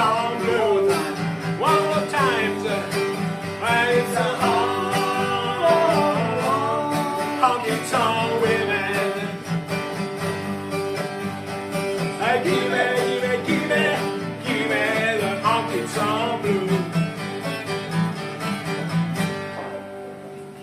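Small acoustic band playing a country song: strummed acoustic guitar under gliding, bending melody lines, dying away near the end as the song finishes.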